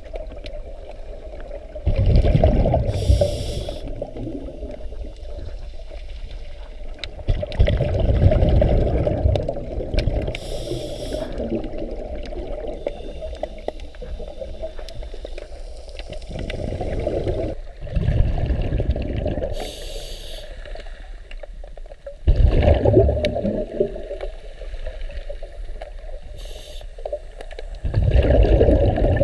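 Scuba diver breathing through a regulator underwater. Five bubbly rushes of exhaled air come about every five seconds, with a short high hiss of an inhale between some of them.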